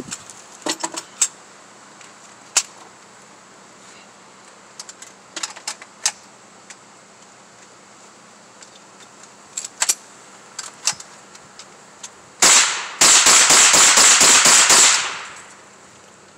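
A .22 LR rifle fired in a rapid string of about a dozen shots over two seconds, starting about twelve seconds in, loud enough to hit the top of the level scale. Fainter single gunshots come at scattered moments before it.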